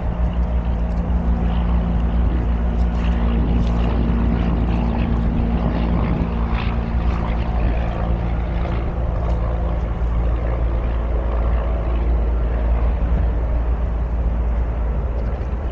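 Wind buffeting the microphone in a gusty low rumble, with the steady drone of a distant engine underneath.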